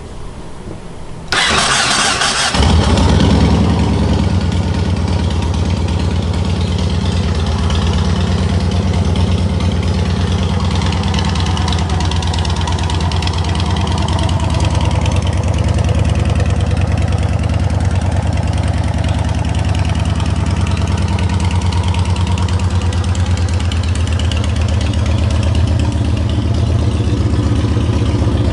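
Yamaha Road Star Warrior's 1670 cc V-twin cranked on the electric starter for about a second, catching and then idling steadily with an even, lumpy beat.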